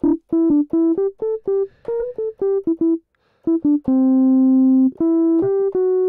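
GarageBand's Deep Bass Tines electric piano patch, a tine electric piano sound, playing a short melodic phrase of quick, short single notes. It stops briefly about three seconds in, then holds one lower note for about a second before more short notes follow.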